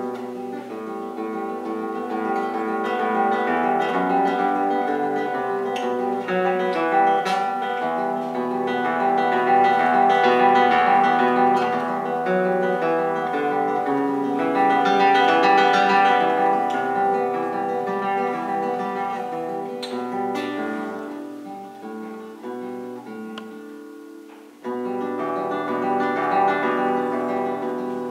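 Classical guitar played solo with the fingers, several voices of plucked notes ringing over one another. About three-quarters of the way through the music dies away to a soft low, then a loud new phrase comes in.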